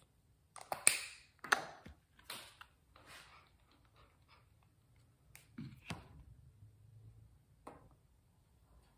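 Handling noises of cosmetics and hair grooming: a run of short swishes and clicks, the loudest two about a second and a second and a half in, then sparser, fainter ones.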